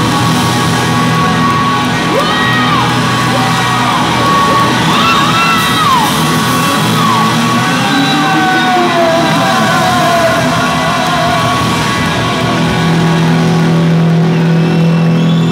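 Live rock band playing in a large hall: electric guitar and drums.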